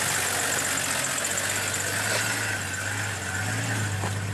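Toyota 4x4's engine running at low revs as it drives slowly over a dirt track close by, a steady low hum.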